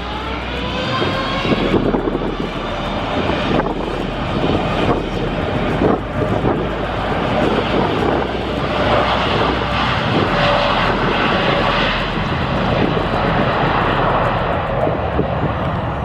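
Jet airliner passing close by, its engines making a loud, steady roar. A whine climbs in pitch over the first couple of seconds.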